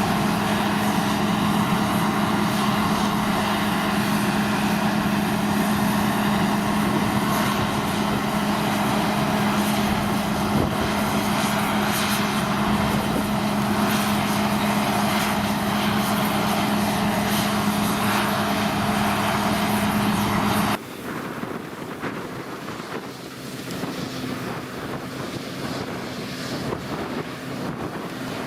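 A New Holland TX-series combine harvester running steadily while cutting a crop, a loud, even drone with a strong constant hum. About twenty seconds in it cuts off abruptly to a quieter scene of wind on the microphone and a fainter machine hum.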